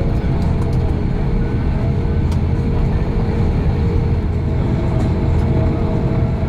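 Airbus A340-600 cabin noise while taxiing after landing: a steady low rumble with a faint steady hum running under it.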